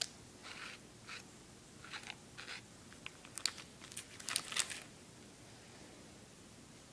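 Hands rolling and handling polymer clay on a tabletop: a scattering of short, faint scrapes and clicks, busiest between about three and five seconds in.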